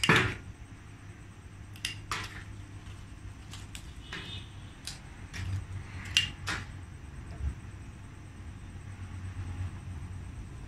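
Hand pruning shears snipping through small red sandalwood twigs: a handful of sharp snips at irregular intervals, the loudest right at the start, over a low steady hum.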